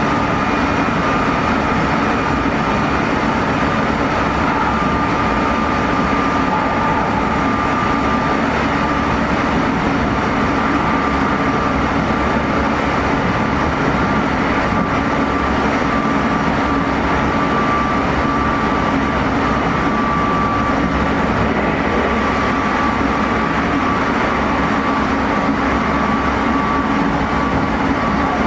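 Inside a Meitetsu 3500 series electric train (Toyo Denki GTO-VVVF motor car) running at a steady speed: continuous wheel-on-rail rumble with a steady high-pitched motor whine over it.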